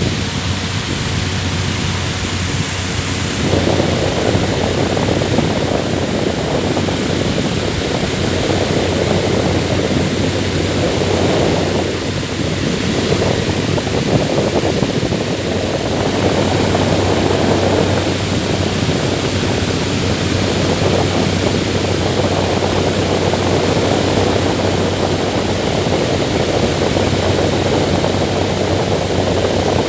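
Electric fan running steadily: an even, loud rushing whir over a constant low hum. Faint higher tones in the whir fade out a few seconds in.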